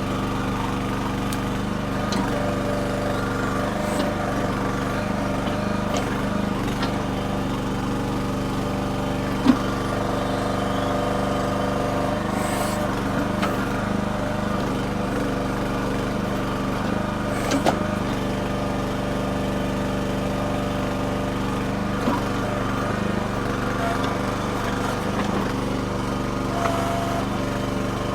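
The small engine of a Red Rock mini backhoe running steadily under a digging load, with a few short sharp knocks scattered through.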